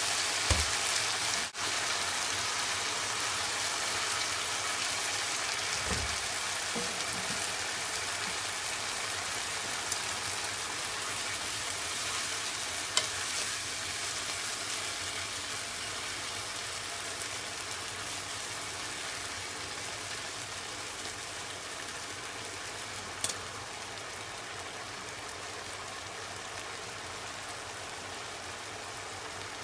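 Daikon peel and pork sizzling steadily in a hot pan as they are stir-fried, the sizzle slowly fading. A couple of single sharp clicks stand out, about halfway through and again near the end.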